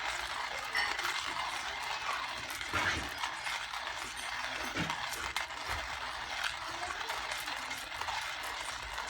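Hand-cranked ceramic burr coffee grinder grinding whole coffee beans as the handle is turned: a continuous gritty grind with many small clicks.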